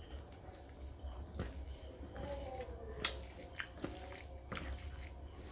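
Wet eating sounds of rice and pork ribs curry eaten by hand: squelching of food and chewing, with several sharp mouth clicks and smacks, the loudest about three seconds in.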